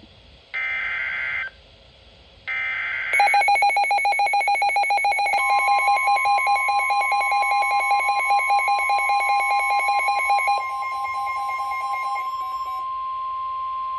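Emergency Alert System broadcast on NOAA Weather Radio: two short bursts of screeching SAME digital header tones, then a rapid pulsing electronic alarm starts about three seconds in. About five seconds in, the steady single-pitch 1050 Hz weather radio warning tone joins it and holds on after the beeping stops near the end, signalling that a warning is about to be read.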